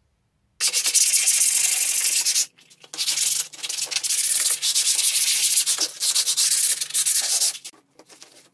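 Sandpaper rubbed by hand over the white-surfaced chipboard board in quick back-and-forth strokes, making a loud scratchy hiss. It breaks off briefly about two and a half seconds in, runs on, and drops to a few faint rubs near the end.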